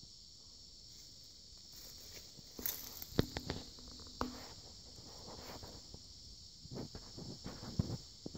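A steady, high-pitched chorus of insects, with two spells of crunching, rustling footsteps through brush, the first about three seconds in and the second near the end.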